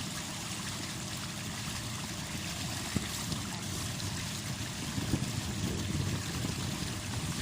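Steady rushing and trickling of lagoon water, with one small click about three seconds in.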